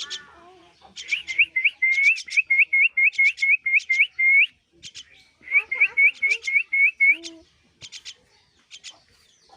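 A myna chick begging for food: two fast runs of short rising whistled calls, about four to five a second, mixed with sharp high clicks, with a pause of about a second between the runs.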